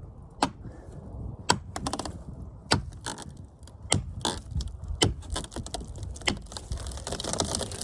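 Sharp wooden knocks or cracks about once a second, with fainter crackles between them, during the felling of a small eucalyptus tree. A rustling hiss builds near the end.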